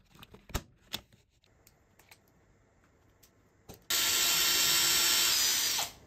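A few light clicks, then about four seconds in a cordless drill fitted with a drill wire stripper runs steadily for about two seconds, starting and stopping abruptly.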